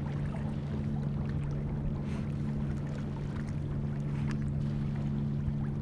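Sailboat's inboard diesel engine running steadily while the boat motors slowly, a constant low drone.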